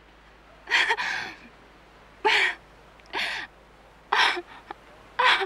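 A woman gasping and crying out breathlessly in astonishment, five short breathy gasps about a second apart.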